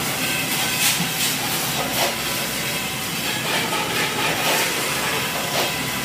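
Automatic weighing and packaging line for coil springs, a multihead weigher feeding a vertical bagging machine, running with a steady hiss and short sharp sounds about once a second.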